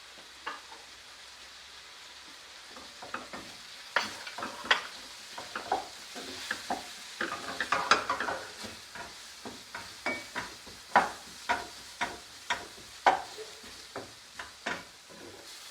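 Onions, ginger and garlic with spices sizzling in oil and butter in a pan, with a spatula scraping and knocking against the pan as they are stirred. The stirring strokes come sparsely at first and then about one or two a second from about three seconds in.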